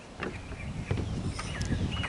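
A bird chirping briefly near the end, over a low background rumble, with a few sharp clicks.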